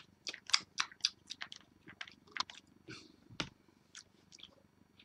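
Irregular light clicks and crackles from handling a vape mod and a childproof e-liquid dropper bottle, with one sharper knock about three and a half seconds in.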